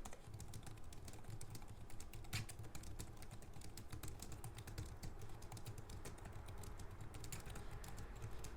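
Fast, continuous typing on a Chesona Serie Bluetooth keyboard: a quick, uneven run of soft key clicks, typed at about 74 words per minute.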